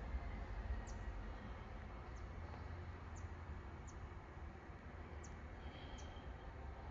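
Faint outdoor ambience: a steady low rumble with short, high chirps about once a second.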